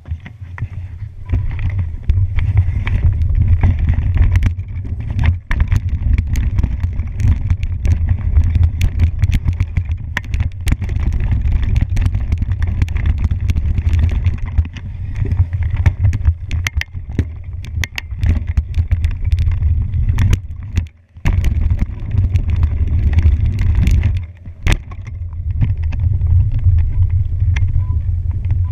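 A mountain bike runs down a forest singletrack. Heavy wind rumble buffets the camera's microphone, the tyres roll over dry leaf litter, and the chain and frame rattle with many sharp clicks over the bumps. The rumble cuts out briefly about two-thirds of the way through.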